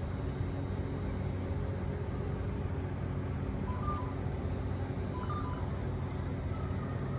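Caltrain Stadler KISS electric multiple unit humming steadily at the platform, a low electrical drone with a faint high whine over it.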